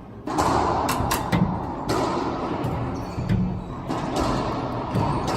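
Racquetball rally: sharp smacks of the ball off racquets and the court walls, several at uneven intervals, each ringing briefly in the court's echo.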